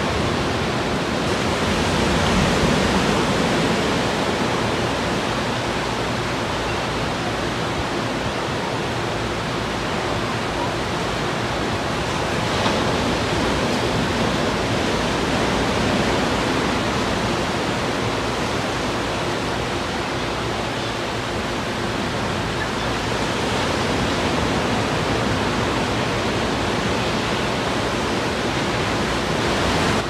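Ocean surf on a sandy beach: low waves breaking and washing in, a steady rushing hiss that swells and eases gently.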